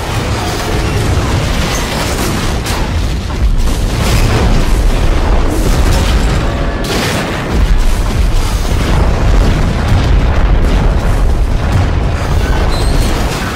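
A continuous barrage of explosions, boom after boom with a heavy low rumble. It gets louder about three and a half seconds in and again near eight seconds.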